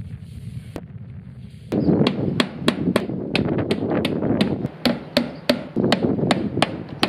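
Hammer blows on the metal flashing of a corrugated steel roof, struck in quick runs of about three a second, with a sharp metallic ring on each blow.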